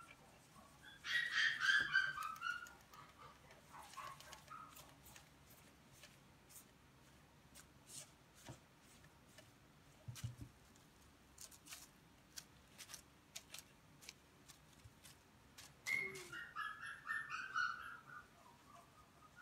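A puppy yelping in two runs of short, high, falling yips, about a second in and again near the end. Scattered light clicks and taps sound in between.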